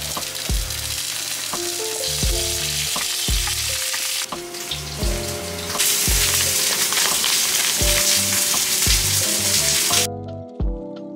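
Asparagus stalks sizzling in hot oil in a frying pan, over background music with a steady beat. The sizzle grows louder about halfway through and cuts off suddenly near the end.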